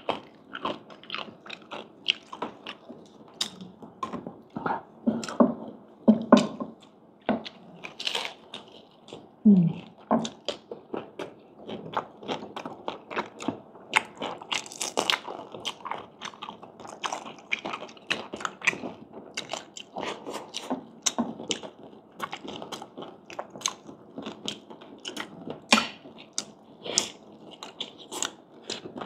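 A person eating crispy fried pork (chicharon and crispy pata), chewing with a dense, irregular run of crisp crunches, several a second.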